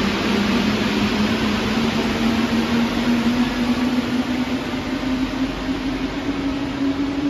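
Rubber-tyred Paris Métro line 14 train pulling out of the station, its motor whine rising slowly in pitch as it speeds up, over a steady rolling rumble.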